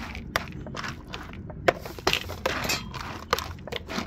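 Dog food being stirred and mixed in a bowl: irregular scraping, clicking and crunching.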